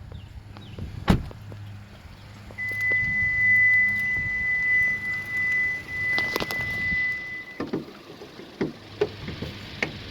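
Car door and latch sounds from a Kia K5: a few sharp thunks and clicks over a low hum, with a steady high-pitched warning tone lasting about five seconds in the middle.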